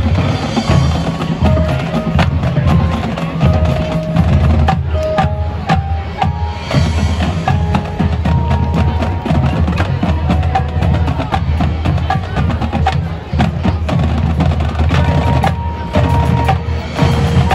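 Marching drumline playing a rock arrangement: rapid drum strokes and rolls over a heavy low drum pulse, with a melody of short pitched notes on top.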